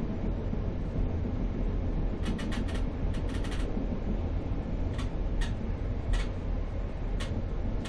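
Steady low rolling rumble of a Z2ABCMg passenger coach, heard from inside its compartment, with a quick run of sharp wheel clacks over the track joints about two to three and a half seconds in and single clacks about once a second near the end.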